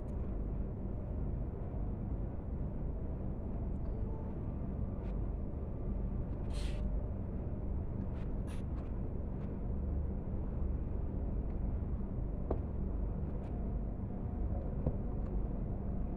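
Steady low background rumble with a few small clicks and a short hiss about six and a half seconds in: the faint handling and chewing sounds of someone eating by hand over room noise.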